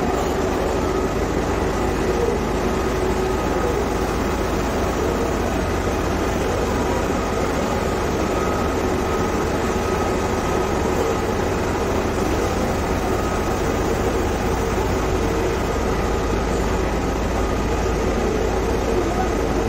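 Steady mechanical rumble with a faint hum running through it, even and unbroken.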